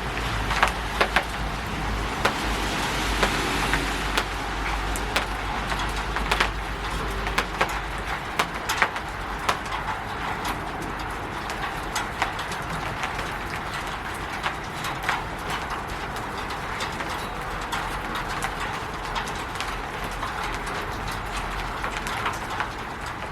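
Steady rain on a roof, a constant hiss with many separate drops tapping at irregular intervals.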